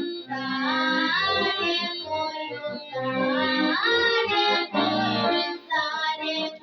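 A girl singing a Russian folk song solo, with sliding, ornamented notes, over instrumental accompaniment.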